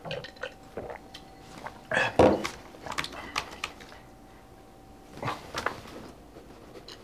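A few short knocks, clicks and rustles of handling at an office desk, the loudest and fullest about two seconds in and another cluster about five seconds in. A faint steady hum runs under them and stops about five seconds in.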